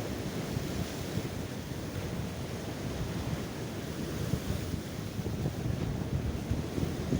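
Sea waves breaking and washing onto the shore, under steady wind buffeting the microphone with a low, gusty rumble.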